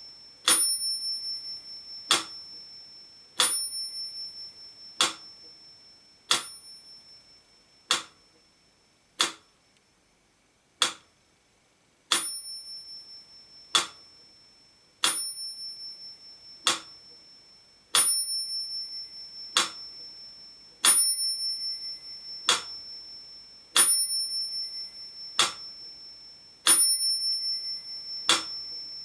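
Mechanical pyramid metronome ticking at 40 beats a minute, one sharp tick about every second and a half, with its small bell ringing on every second beat and ringing on between ticks.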